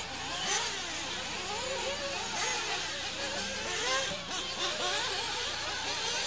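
Several nitro RC buggy engines, small two-stroke glow engines, running at high revs together, their overlapping pitches rising and falling continually as the cars accelerate and back off around the track.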